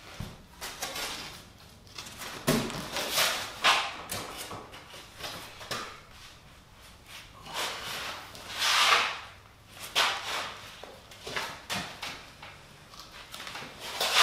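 Rigid extruded-polystyrene foam insulation board being handled and slid over another foam panel: irregular rubbing and scraping with light knocks. There is a louder swishing rub about nine seconds in.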